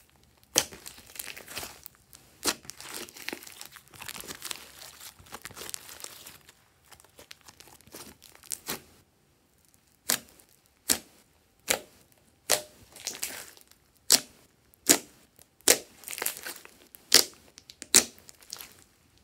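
Hands squeezing and poking glossy slime. Sticky crackling and squelching fill the first half; after a brief pause, a string of sharp pops comes about once a second as the fingers press into and pull out of the slime.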